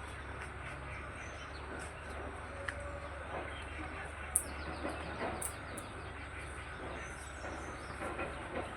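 Morning outdoor ambience: a steady low rumble with a few short, high bird chirps, the loudest about halfway through, and a quick run of faint ticking notes between them.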